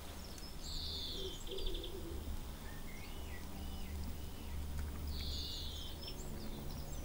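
Small songbirds singing: a buzzy phrase about a second in, a few short whistled notes, and the buzzy phrase again about five seconds in, over a low steady hum.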